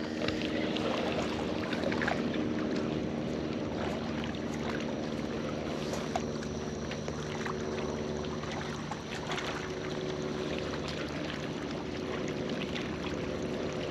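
A boat motor running steadily, a low hum that holds the same pitch throughout, with a haze of water and scattered small clicks.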